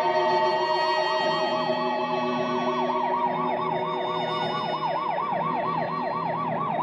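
Police car siren wailing in a fast, even up-and-down sweep, about three to four cycles a second. It comes in over fading steady music tones near the start.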